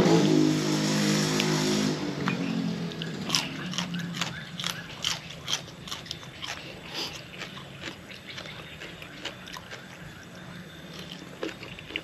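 A person chewing crunchy raw vegetables and raw shrimp: crisp, wet crunching clicks, densest from about three seconds in and thinning out later. At the start a low droning hum fades away over the first two seconds.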